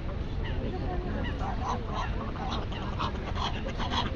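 Geese honking repeatedly in short calls, several a second toward the end, over a steady low rumble of background noise.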